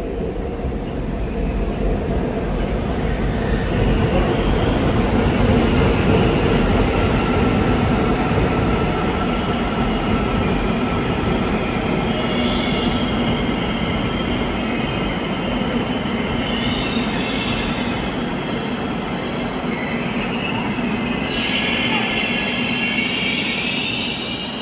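Seoul Subway Line 4 electric train pulling into the station: a heavy rumble of wheels on rail that builds for the first several seconds. From about halfway, high squealing sets in as it brakes, and it is loudest just before the train comes to a stop.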